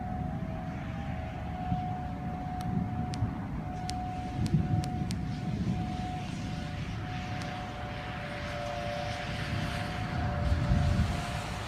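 Distant outdoor tornado warning sirens sounding a steady two-note tone that fades in and out slightly, over a loud low rumble, with a few sharp clicks a few seconds in.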